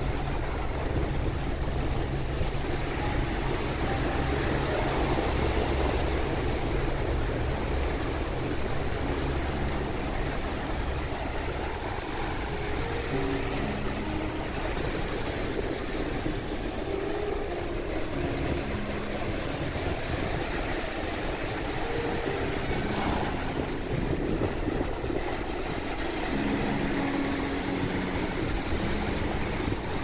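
Small Atlantic waves breaking and washing up a sandy shore in a steady rush of surf, with a low rumble that is heaviest in the first few seconds.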